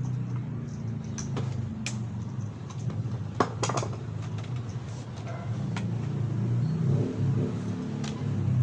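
A steady low mechanical hum with scattered sharp clicks and taps, the loudest about three and a half seconds in.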